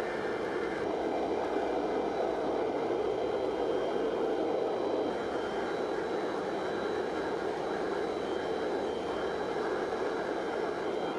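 Hydraulic forging press running steadily, its motor and pump humming with a faint high whine, as it slowly compresses a glowing-hot steel canister.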